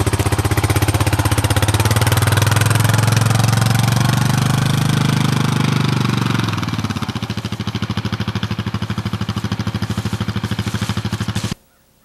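Honda Foreman 4x4 ATV's single-cylinder engine running close by with a fast pulsing beat, its note rising as it pulls away loaded with a deer, then dropping and fading as it drives off. The sound cuts off abruptly near the end.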